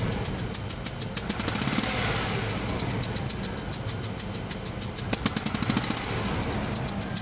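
2003 Land Rover Discovery engine running with a fast, regular clicking over its hum, many clicks a second. The owner takes the clicking for a fault of unknown cause.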